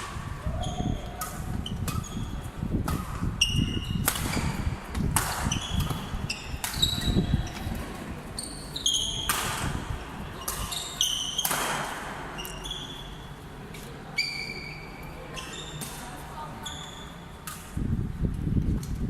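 Shoes squeaking sharply and repeatedly on an indoor court floor during a rally, mixed with sharp hits and thuds, over a murmur of voices in a large hall.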